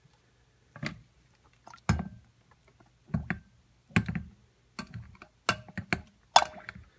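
A utensil clinking and knocking against the container, about once a second, as powdered additives are stirred into the soap-making oils.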